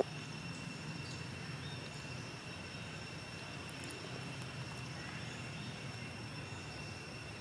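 Steady outdoor background noise with a constant high-pitched whine running over it and a low hum beneath; no distinct event stands out.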